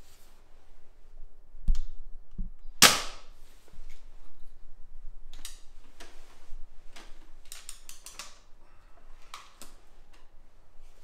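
SMK Artemis SR900S side-lever spring-piston air rifle firing once about three seconds in: a sharp crack with a short ring, just after a low thump. Then comes a run of mechanical clicks and clatter as the rifle is handled and the side lever is worked for the next shot.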